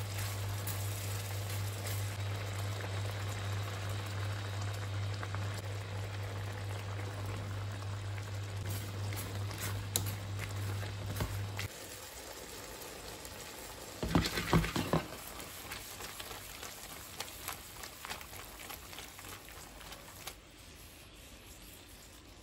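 Sausage and saffron sauce with gnocchetti sizzling and bubbling in a frying pan, over a steady low hum that cuts off about halfway. A couple of seconds later there is a brief loud clatter in the pan, and then the sizzle fades.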